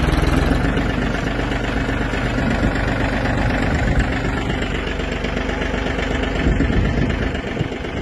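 A red compact tractor's engine running steadily at a low, idling pace.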